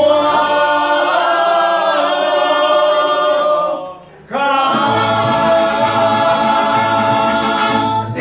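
Mariachi band singing and playing long held notes together, breaking off briefly about four seconds in before a second held chord, with a plucked bass pulsing beneath it: the closing notes of a song.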